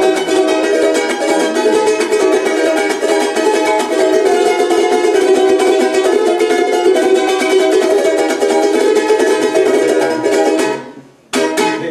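Charango played fast: a rapid, unbroken stream of strummed and picked notes. The playing breaks off near the end, then a few quick final strokes.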